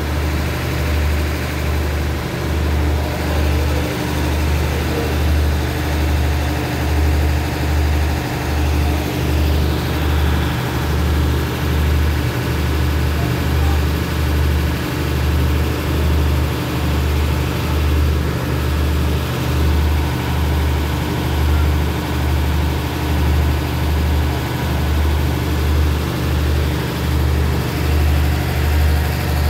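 Diesel engine of a standing passenger train idling, a steady low rumble that throbs about once a second.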